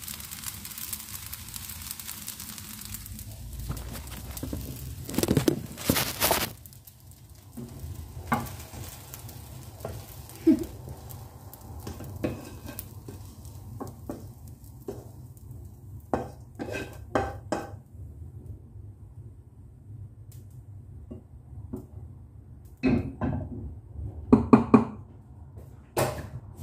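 Egg fried rice sizzling and being stirred with a metal spatula in a pan; the sizzle stops about six seconds in. A steady low hum carries on under scattered clinks and clatters of utensils and dishes, which come thicker near the end.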